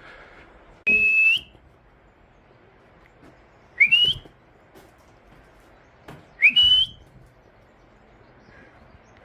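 Three short whistles, about two and a half seconds apart, each sliding up in pitch and then holding briefly, with a breathy hiss.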